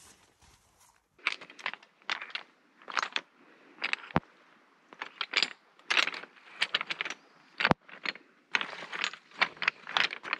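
Loose beach pebbles crunching and clattering underfoot in irregular steps, with a couple of sharp clicks.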